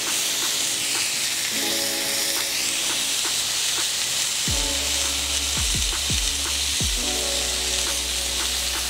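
Raw ground-beef patty sizzling steadily on a hot flat-top griddle, held flat under a burger press. Background music with repeating chords plays underneath, and a deep sliding bass joins about four and a half seconds in.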